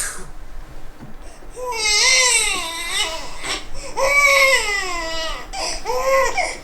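A baby crying out in long wavering wails, pitch sliding up and down, two long ones followed by a few shorter ones near the end.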